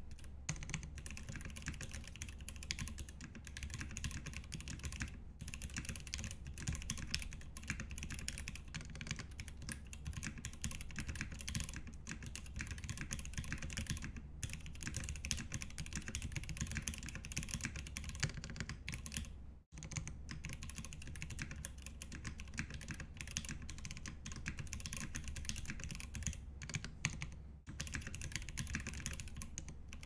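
Continuous fast typing on a custom aluminium-cased mechanical keyboard with lubed Greetech Black linear switches, a polycarbonate plate and PBT keycaps: a dense, steady stream of keystrokes. The sound cuts out for an instant twice, about two-thirds through and near the end.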